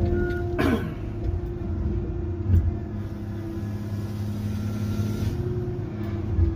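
Tigercat 822 feller buncher's diesel engine and hydraulics running steadily, heard from inside the cab, with a sharp clack about half a second in.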